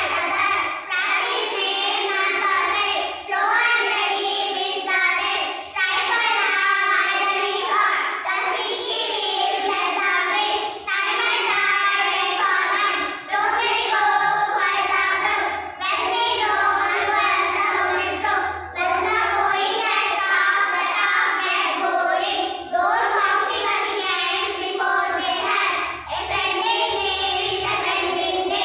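A group of young girls singing together in unison without accompaniment, their phrases broken by short breath pauses every two to three seconds.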